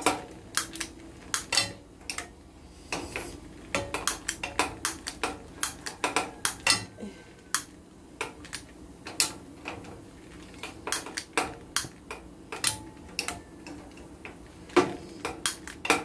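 Kitchen clatter of pots, pans and utensils: many sharp, irregular clinks and knocks.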